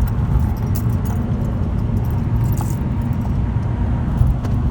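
Steady low road rumble inside a moving car, with a few light clinks of jewelry being handled.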